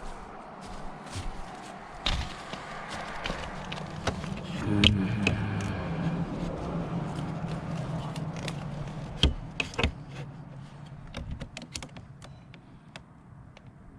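Clicks and knocks of hands working on the ATV's plastic panels, with a low steady hum lasting about five seconds in the middle and a run of faint quick ticks near the end.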